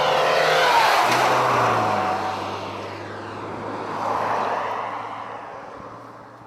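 Car passing close by at speed on a highway, a loud rush that peaks about a second in with its pitch dropping as it goes by, then a second, quieter pass about four seconds in before the traffic noise fades.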